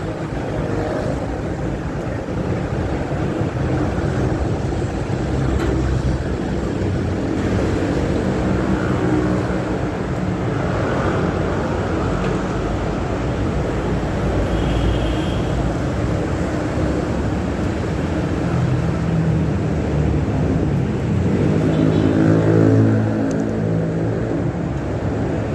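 Steady low engine rumble of motor traffic, swelling to its loudest near the end and then dropping back, like a vehicle passing close by.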